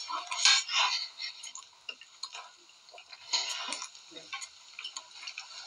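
Noodles slurped and eaten in quick forkfuls, with the fork clinking and scraping on a plate; the loudest slurps come about half a second in and again just after three seconds.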